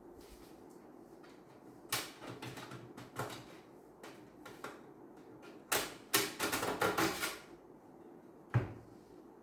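Handling noises from a PC case and its parts: scattered knocks and clatters, with a quick run of them about six to seven seconds in and one sharp knock near the end.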